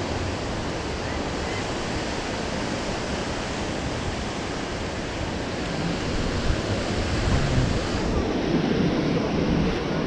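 Ocean surf washing steadily, mixed with wind noise on the microphone. Faint voices come in near the end.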